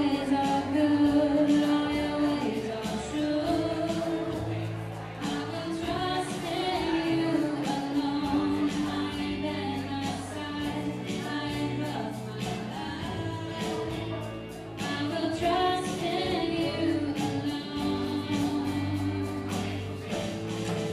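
Live church praise band playing a song with singing over a steady beat.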